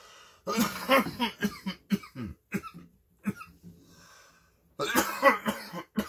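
A man coughing repeatedly after inhaling bong smoke. There is a run of rapid coughs in the first couple of seconds, a few single coughs, and another bout near the end.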